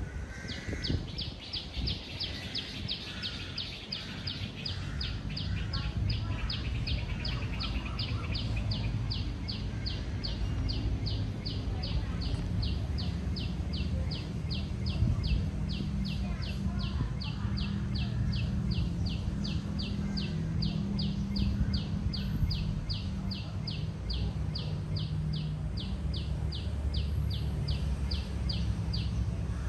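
Outdoor ambience: a short high-pitched chirp repeating steadily, about three a second at first and slowing to about two a second, over a low steady rumble.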